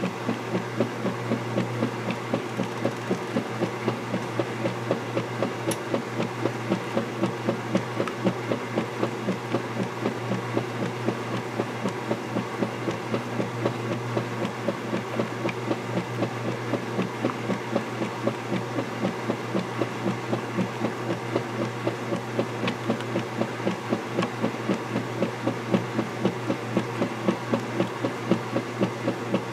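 Vintage KitchenAid direct-drive top-load washer agitating a load: a steady motor hum with the finned dual-action agitator swishing the water and clothes in an even rhythm, a couple of strokes a second.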